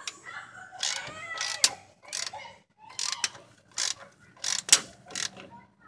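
Ratchet wrench clicking in short, uneven bursts, about one to two strokes a second, as it tightens the engine-mount bolt from underneath a Mercedes W123.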